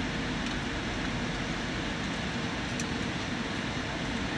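Steady cabin noise inside an Airbus A320 in flight: the drone of the jet engines and the rush of air along the fuselage, with a faint steady tone in it.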